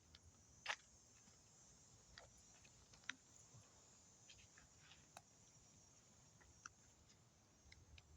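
Near silence: a faint steady hiss with about half a dozen scattered faint clicks, the sharpest under a second in and another about three seconds in.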